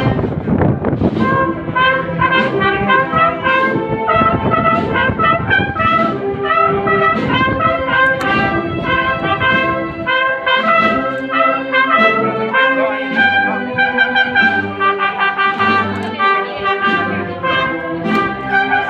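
Brass band playing a processional march, with brass carrying a melody of held, changing notes.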